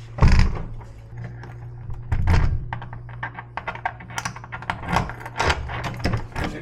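A newly installed Kwikset SmartKey deadbolt being worked with its key: quick metallic clicks of the key and cylinder, with heavier thunks as the bolt is thrown and drawn back, three of them louder than the rest. A steady low hum lies underneath.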